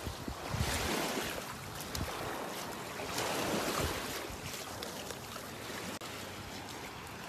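Small waves lapping and washing over a sandy shore in shallow water, swelling louder twice, with some wind buffeting the microphone.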